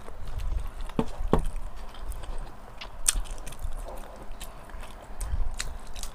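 Close-miked eating sounds: chewing and mouth smacks with scattered short clicks, two stronger ones about a second in and a sharp one near the middle.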